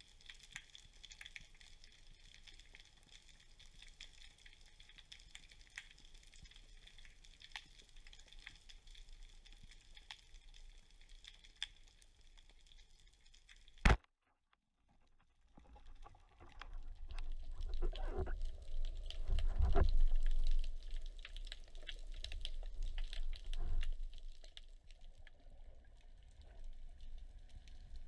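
Underwater ambience: a faint, steady crackle of fine ticks, typical of snapping shrimp on a reef. About halfway there is one sharp click and a brief dropout. Then comes a louder low rushing of water with surges, as water moves past the gun-mounted camera housing while the diver swims.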